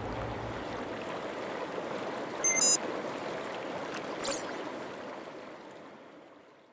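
Sound design for a logo outro: a steady rushing hiss, the tail of the sting just before. A brief high glittering sound comes about two and a half seconds in and a short swish a little after four seconds, and it all fades out near the end.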